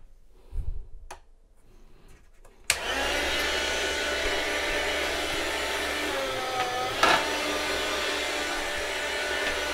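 Electric meat slicer (Chef's Choice 609) switching on about a quarter of the way in and running with a steady motor hum and whir. The pitch shifts briefly about two thirds through as the blade cuts a slice of hard salami.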